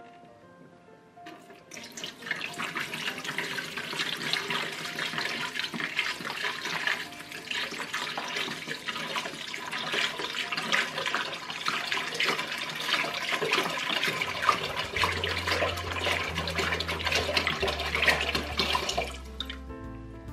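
Water poured from a filter pitcher into the top-fill tank of a humidifier, a steady splashing pour that starts about two seconds in and stops shortly before the end.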